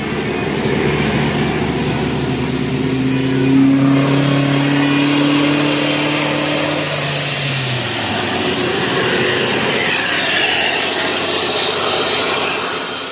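Large bus passing with its engine running loudly; a steady low engine note holds for several seconds and sinks away about halfway through.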